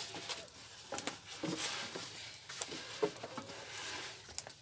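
Irregular light knocks and rustles of a long thin wooden rolling pin working yufka dough on a round wooden board.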